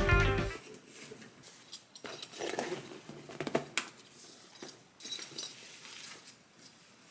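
A pet making small sounds among soft rustling and light clicks, as background music fades out at the start.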